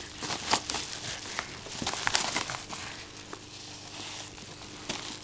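Gift wrapping paper crinkling and rustling as a dog noses into a wrapped present and pulls at the paper, in irregular crackly bursts, busiest about half a second in and around two seconds in, then quieter.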